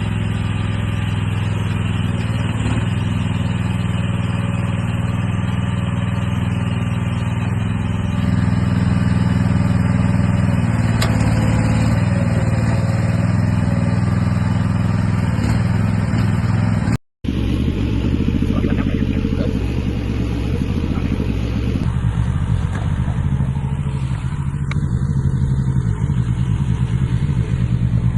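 The small engine of an AGT MX12R mini excavator running steadily while it works, with a brief dropout about two-thirds of the way through.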